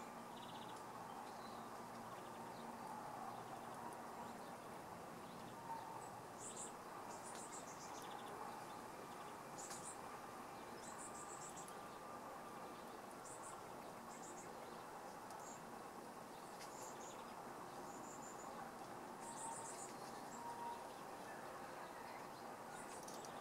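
Faint outdoor ambience: an insect chirping in short, high-pitched bursts that come irregularly every second or two, over a steady low hiss.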